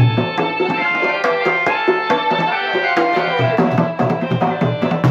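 East Javanese Bantengan music played live: hand drums and a large barrel bass drum (jidor) beat a rhythm under a melody of ringing pitched tones.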